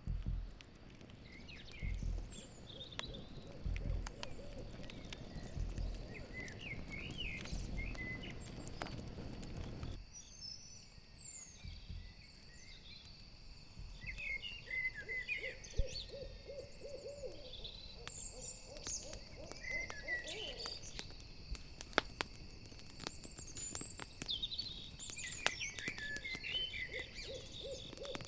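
An owl hooting in quick runs of short low notes, over a steady high chirring of crickets and the sharp crackle and pop of a campfire.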